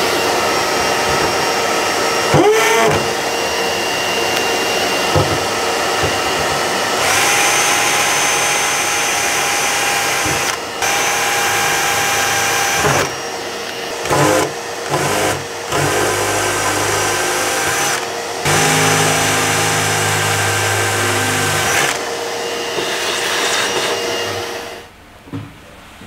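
DeWalt cordless drill boring a 5 mm pilot hole for a rivet through the steel pillar of a VW T3 van, with a vacuum running alongside, its hose held at the bit. The sound is steady with several brief drops in the middle and stops about a second before the end.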